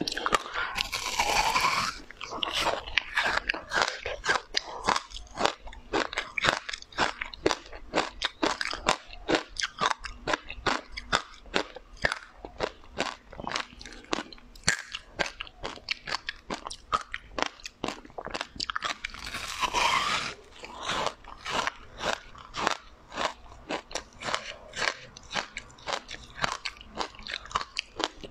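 Close-miked eating of a hard, crunchy treat: a dense run of crackling crunches from chewing. Two louder, longer bites come about a second in and again about twenty seconds in.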